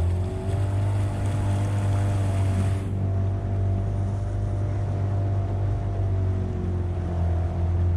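Boat motor running at a steady speed, a constant low drone, with a rushing hiss of wind and water that drops away about three seconds in.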